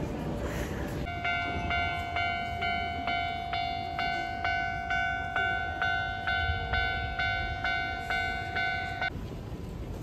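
Japanese railway level-crossing warning bell ringing, a repeated electronic ding about twice a second, signalling that the barriers are down for an approaching train. It starts about a second in and stops about nine seconds in, over a low street rumble.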